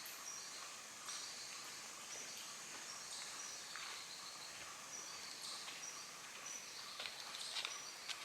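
Faint woodland ambience with short, high bird chirps repeating about once a second, and a few soft footsteps near the end.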